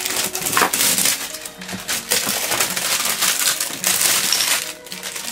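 Clear plastic wrapping being torn and pulled off a cardboard box, crinkling and crackling in a rapid, uneven run that eases off near the end.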